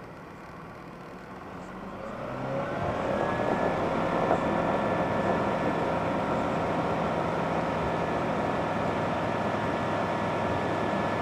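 A light sport aircraft's piston engine throttled up to takeoff power for the takeoff roll. Its pitch and loudness climb over about a second and a half, starting about two seconds in, then hold steady.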